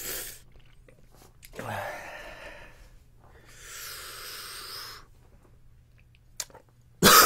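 A man breathing hard through his mouth against the burn of Carolina Reaper pepper: a few short breaths, then a long hissing breath out about three seconds in. A loud, sudden sound comes near the end.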